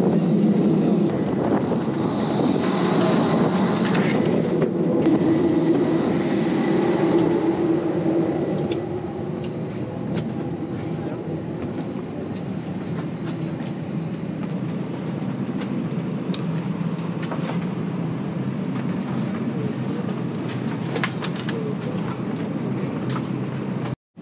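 Steady low rumble with rattles, louder for the first eight seconds, then the quieter steady hum of an Airbus A320neo cabin during boarding, with scattered clicks and knocks.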